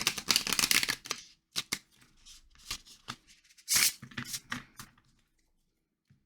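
A thick deck of Heartwood Tarot cards being shuffled by hand: a rapid run of card clicks through the first second, scattered taps, then a second short flurry a little before four seconds.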